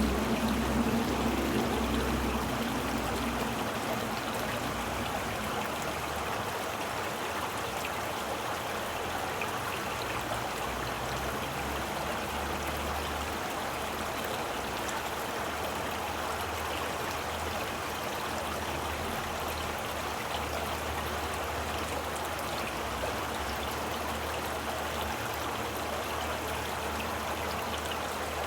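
Flowing water running steadily like a stream, louder and deeper for the first few seconds, then settling to an even rush.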